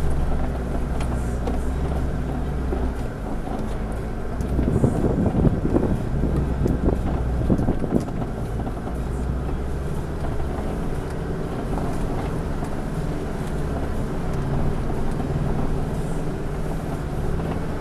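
Four-wheel-drive vehicle's engine running steadily at low revs as it crawls along a rough off-road track, louder and rougher for a few seconds from about four to eight seconds in.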